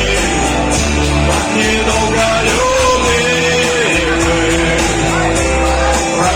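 A rock song with guitar being sung, a voice holding long notes over a steady bass line.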